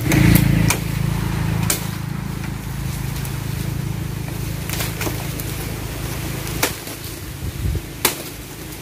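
A machete chopping at bamboo: about eight sharp cracks at uneven intervals, over a low rumble that fades out about seven seconds in.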